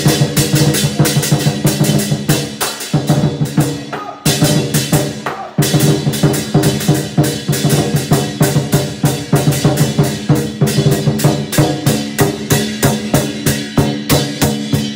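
Chinese lion dance percussion: a large lion dance drum beaten in fast, steady strokes with cymbals clashing along. It drops to a quieter, sparser patter about three seconds in, then comes back loud just after four seconds.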